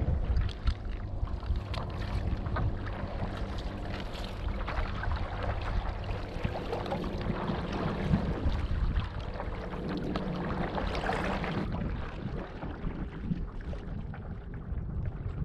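Wind buffeting the microphone and water splashing and sloshing around a stand-up paddle board, with a faint steady low hum underneath until about twelve seconds in.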